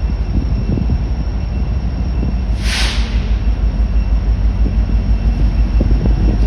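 Freight train rolling past close by: a steady low rumble with rapid knocking of wheels and cars. A short hiss breaks through about three seconds in.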